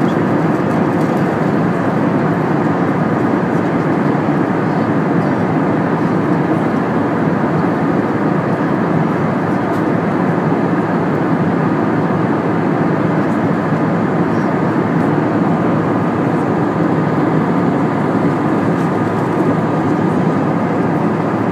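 Steady cabin noise of a jet airliner in flight: the engines and the airflow over the fuselage make an even drone and rush, with a faint steady hum in it.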